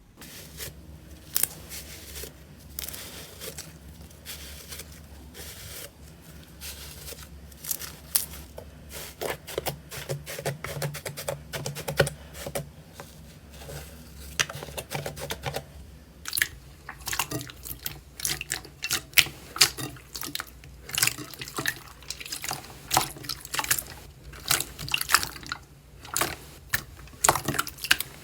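Slime being squished and worked by hand, giving rapid wet, sticky clicks and pops that grow busier and louder in the second half, over a steady low hum.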